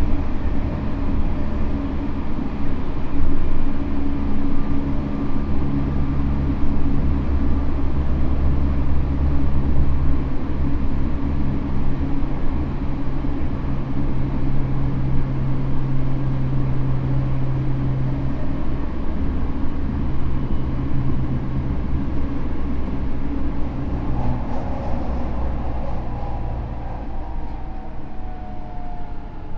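Tokyo Metro new 05 series electric train with Hitachi IGBT inverter control, running at speed and heard from inside the car: a steady rumble of wheels on rail under the traction motors' hum. From about 24 seconds in, thin higher tones that shift in pitch come in. This car's high-pitched sound at speed is unusually prominent, which the uploader puts down to its traction motors seemingly having been swapped with 15000-series ones.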